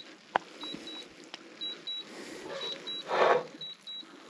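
Drone beeping as it lands by itself: pairs of short, high beeps about once a second. A couple of sharp clicks come near the start, and a brief scrape of a spatula in a frying pan about three seconds in.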